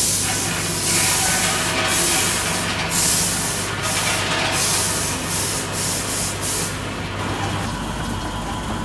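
Peanut flour milling machine running: a steady motor hum with repeated bursts of hissing that stop about seven seconds in.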